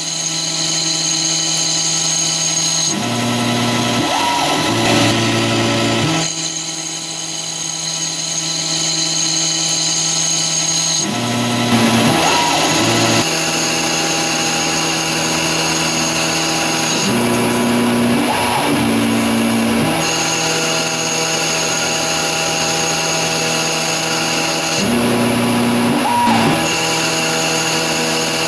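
Grizzly G0602 CNC lathe boring the inside of an aluminium tube with a boring bar, coolant spraying: a steady machine whine of several tones, whose pitch pattern shifts every several seconds as the axes move between cutting passes, with a brief rising tone about four times.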